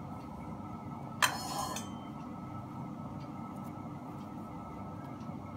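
One sharp metallic clink against a steel plate about a second in, ringing briefly, as hands work rice-flour dough in it, over a steady low background hum.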